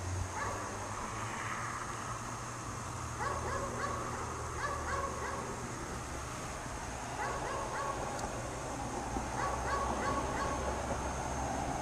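Dog barking over and over in short bouts of a few barks each, with pauses of a second or two between bouts, while chained outside.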